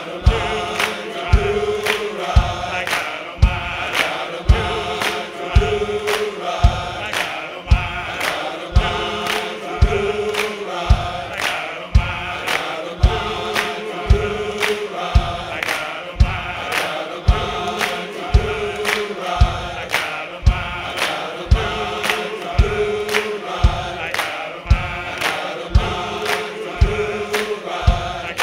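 Men's gospel choir singing together over a steady, driving beat, with hand clapping in time.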